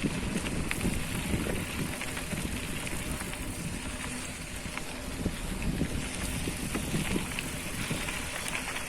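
Vehicle driving along a rough road: a steady low rumble with scattered knocks and rattles, and wind on the microphone.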